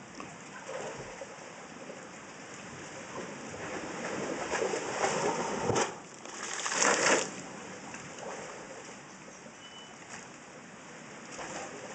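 Sea blowhole in a rocky shore spouting. A rushing wash of water swells over a few seconds, then a sharp knock and a loud burst of spray about six seconds in as the water shoots out of the rock, falling back to a low wash.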